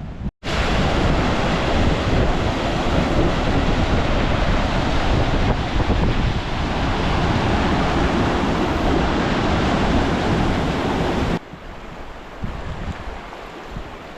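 Steady loud rush of a fast-flowing river, with wind buffeting the microphone. About eleven seconds in it drops to a quieter rush.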